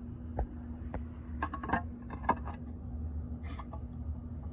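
Scattered light metallic clinks and taps of small metal parts being handled, over a steady low hum.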